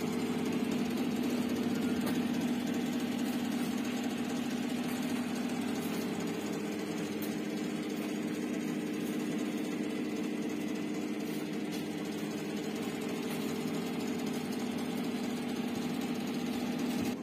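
Steady electrical hum of a powered-up shortwave diathermy machine, switched on and running but giving no therapy output. The hum holds unchanged and cuts off suddenly at the end.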